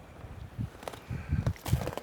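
Several footsteps on icy ground, irregular and getting louder and more frequent in the second half.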